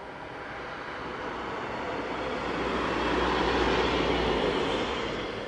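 Box truck driving past on the road, its engine and tyre noise swelling to a peak a little past the middle and then fading away.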